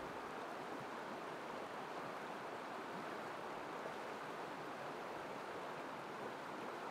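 Shallow river rushing steadily over a rocky bed, an even, unbroken water noise.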